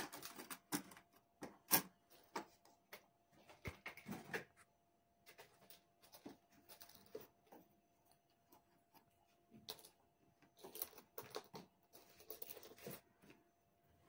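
Fridge magnets being moved about and pressed back onto a refrigerator's metal door: faint, scattered light clicks and taps, in clusters near the start and again about two thirds of the way through, with a quieter stretch between.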